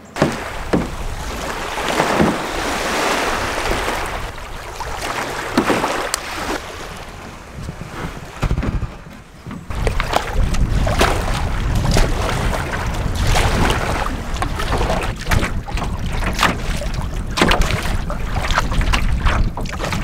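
Strong wind buffeting the microphone, with waves slapping and splashing around a canoe being paddled through rough, 4-foot swells. Irregular splashes throughout, and the wind rumble grows heavy about halfway through.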